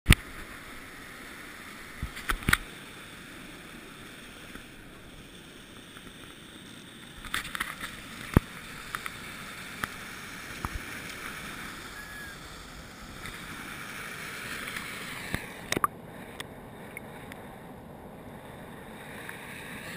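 River water rushing over rapids, a steady hiss with several sharp knocks and clicks from the camera being handled. About three-quarters of the way through, the high hiss drops away and the water turns muffled as the camera goes under the surface.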